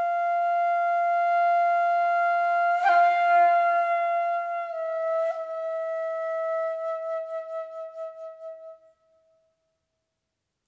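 Solo concert flute holding a long note, then stepping slightly lower to a second long note about halfway through, which wavers and fades away near the end.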